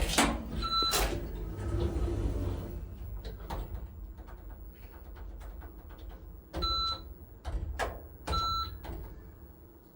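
ThyssenKrupp lift's automatic sliding doors running open with a rumble and clicks, and three short high electronic beeps from the lift, the first about a second in and two more close together near the end.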